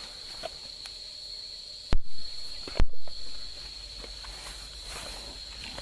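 Insects chirring in a steady high drone, with two sharp thumps less than a second apart about two seconds in.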